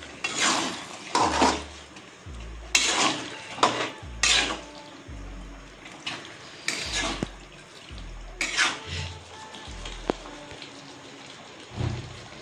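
A metal spatula stirring and scraping chicken pieces through thick wet masala in a metal kadai. It comes as a string of short, irregular scrapes, roughly one a second.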